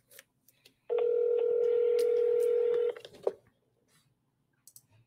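Ringback tone of an outgoing phone call heard over speakerphone: one steady ring lasting about two seconds, starting about a second in, while the call waits to be answered. A short click follows.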